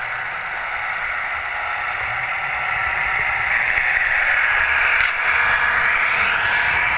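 OO gauge model diesel train fitted with a DCC sound chip, running past at speed: its engine sound from the onboard speaker, together with its running noise, a steady hiss that grows louder as it comes close and passes about five seconds in.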